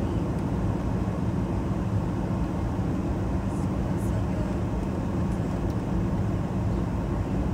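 Steady low rumble of an airliner's engines and rushing air, heard inside the passenger cabin in flight.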